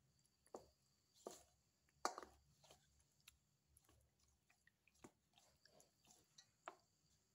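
Faint wet squelches and light knocks as a spoon turns raw chicken pieces in turmeric marinade in a stainless steel bowl. There are about half a dozen separate short sounds, the loudest about two seconds in.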